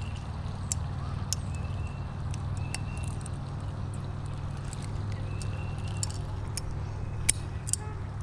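Scattered small metallic clicks and taps of fishing pliers and hand handling as a hook is worked out of a sunfish's mouth, the sharpest click near the end, over a steady low hum.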